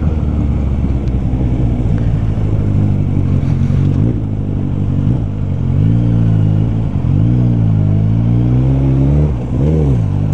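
Motorcycle engine with an aftermarket Carbox Racing exhaust, running at low speed. It holds a steady pitch for the first half, then the revs dip and climb several times as the throttle is closed and opened again, with one sharp blip near the end.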